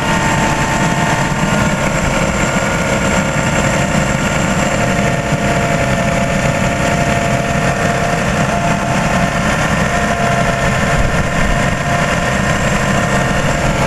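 1993 Toyota Camry V6 engine idling steadily, with the air conditioning on, heard from the open engine bay.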